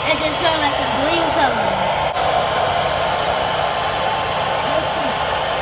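Handheld hair dryer running steadily, blowing hot air onto wax crayons to melt them.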